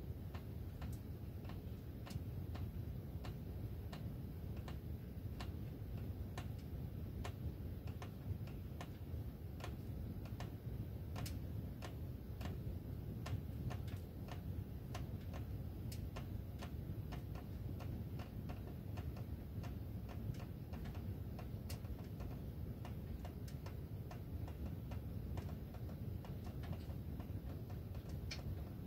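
Ductwork ticking at uneven intervals, a little more than one sharp tick a second, over a steady low rumble.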